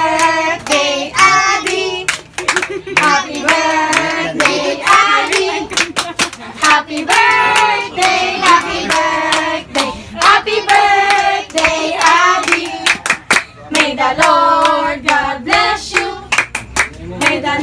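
A group of voices singing a birthday song together, with hand clapping in time.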